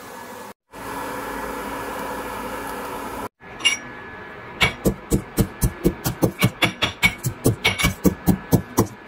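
Steady fan-like hum of a kitchen appliance, cut off abruptly twice. Then a fast run of sharp knocks on a hard kitchen surface, about three to four a second, which are the loudest sound.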